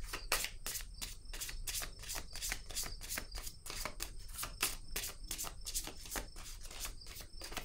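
Tarot cards being shuffled by hand: a steady run of soft card slaps, about three or four a second.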